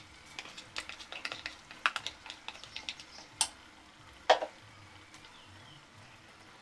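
Hot oil crackling and popping under mutton, yogurt and spice paste in a pot on the flame: scattered irregular pops, with two louder ones a little past the middle.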